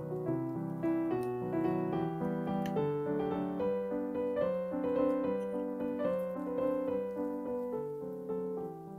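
Background piano music: a gentle melody of held notes over sustained chords.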